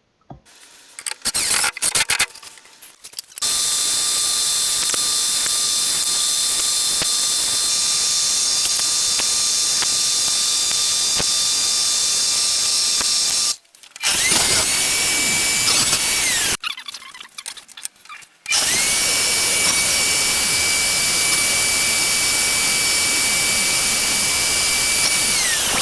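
A power tool's motor running at steady speed in three runs, with a steady whine, each switching on and off abruptly: a long run of about ten seconds, a short one, then another of about seven seconds. A few short knocks come in the first seconds.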